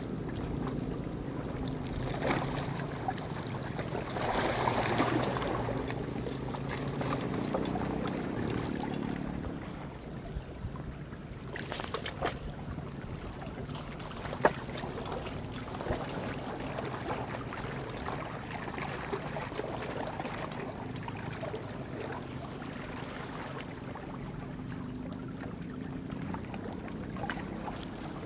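A boat engine droning steadily over wind on the microphone and water washing against rocks. The engine hum fades about ten seconds in and returns faintly near the end, with a couple of sharp clicks in between.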